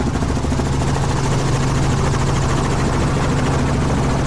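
Helicopter in flight, its rotor and engine running steadily with a rapid blade beat, heard from inside the open-sided cabin.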